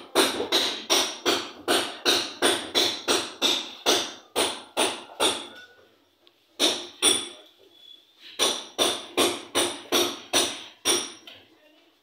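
Quick, even hammer blows, about three a second. They break off for a couple of seconds a little past halfway, then start again.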